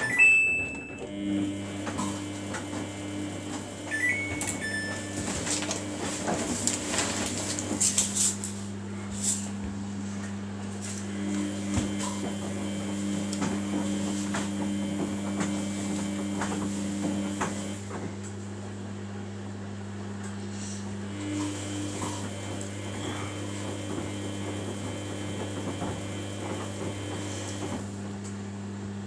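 Samsung WF80F5E0W4W front-loading washing machine tumbling a soapy wash: a steady motor hum with a second tone that comes and goes in stretches of several seconds, over water sloshing and splashing in the drum that eases off a little past the middle. A short beep sounds at the very start.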